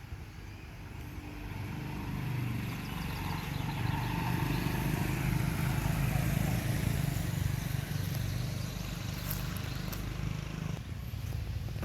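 A motor vehicle's engine running close by, growing louder over the first few seconds and easing off near the end, as if passing.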